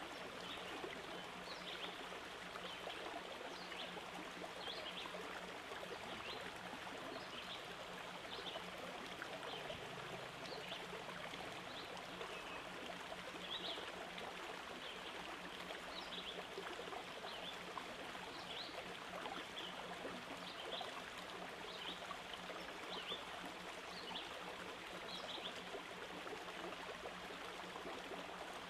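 Steady stream-like rushing of water with faint short high chirps scattered throughout, the same from start to end. It does not change while the mixture is blended and poured, so it is a background ambience track rather than the kitchen sounds.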